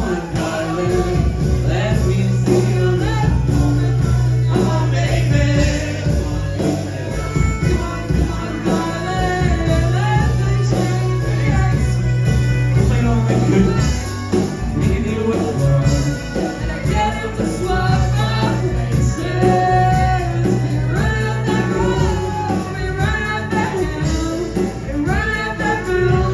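Live rock band playing a song, with a singer over the band.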